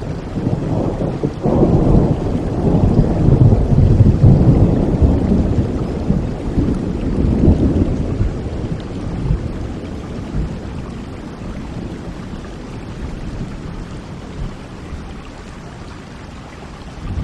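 Rain falling steadily with a long roll of thunder that rumbles in about a second and a half in, is loudest a few seconds later and slowly dies away.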